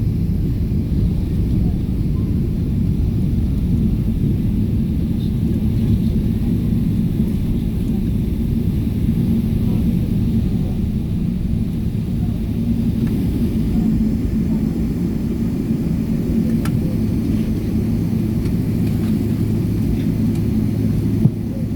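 Steady low cabin rumble of a Boeing 777-300ER's GE90 jet engines and airflow, heard from inside the passenger cabin. A low steady hum joins about three-quarters of the way through, and there is a single click near the end.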